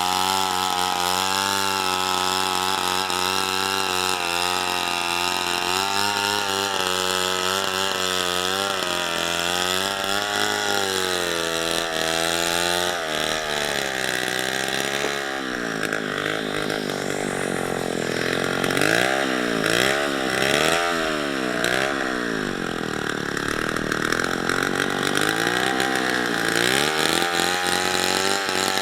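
Two-stroke chainsaw running at high revs throughout, its engine pitch rising and falling repeatedly, with wider swings in the second half, as it is throttled and loaded in the cut.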